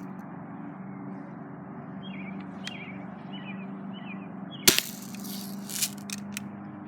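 A single BB gun shot, a sharp crack about two-thirds of the way through, over a steady low hum.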